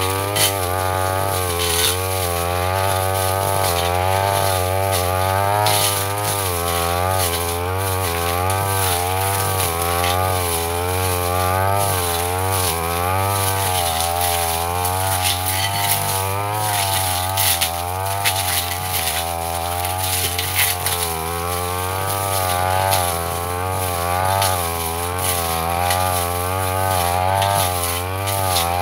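Petrol backpack brush cutter running at high revs, its engine note rising and falling every second or two as the metal blade bites into grass and sapling stems. Sharp clicks and ticks of the blade striking woody stems come through over the engine.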